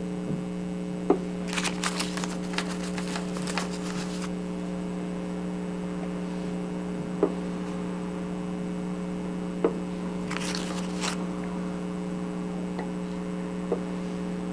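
Small miniature-kit bricks being handled and pressed into place on a tabletop: a few sharp single taps and two short spells of quick crackling rustle. A steady electrical hum runs underneath.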